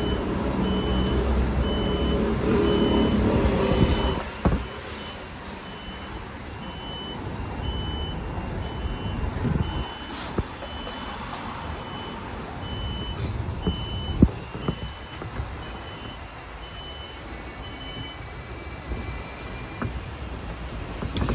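An electronic warning beeper sounds a short high beep about once a second and stops about three seconds before the end, over street-vehicle rumble that is loud for the first four seconds and then drops. A few sharp knocks stand out, the loudest about two thirds of the way through.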